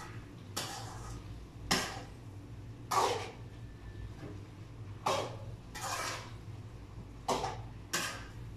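Metal spatula scraping and knocking against a wok during stir-frying, with a sharp stroke about once a second.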